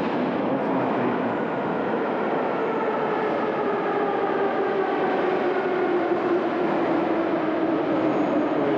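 Saint Petersburg metro train pulling into the platform, its motor whine slowly falling in pitch as it slows to a stop.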